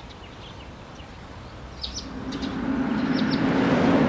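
A few short bird chirps, then a car engine approaching, a steady low hum growing louder from about halfway through.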